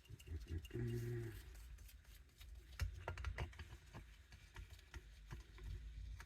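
Small metal carburetor parts clicking and tapping as they are handled and unscrewed, in a quick cluster of light clicks around the middle, with a short low hum about a second in.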